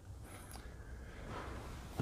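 Quiet room tone: a faint, even hiss with no distinct events.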